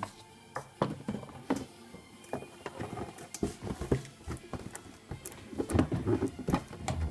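Plastic toy parts and a cardboard box being handled: scattered light taps, clicks and knocks, busiest near the end.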